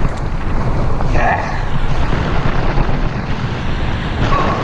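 Steady wind buffeting on the camera microphone mixed with the rumble of fat tyres rolling fast over a dirt trail on an e-bike.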